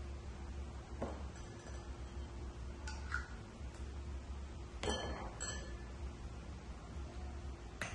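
About five light clinks of glass sauce bottles and a ceramic ramekin handled while sauce is poured, some ringing briefly, over a low steady hum.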